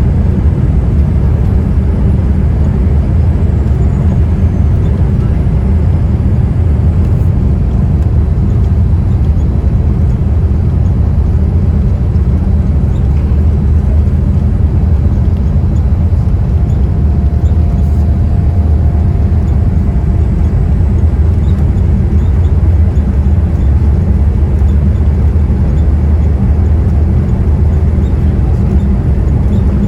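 Boeing 787-8 jet engines running during takeoff: a loud, steady, deep rumble that holds level throughout.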